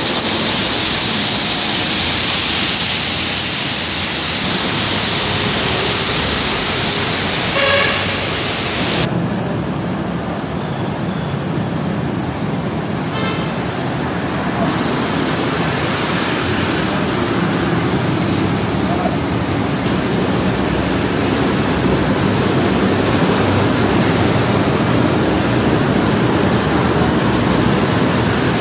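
Steady noise of rain and passing traffic on a wet city road, with a brief car horn toot. About nine seconds in the sound changes abruptly, losing its hiss and turning duller.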